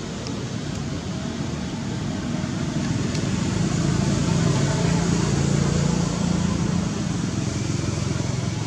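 A motor vehicle's engine drones steadily in the background. It grows louder about three seconds in and eases off again after about seven seconds.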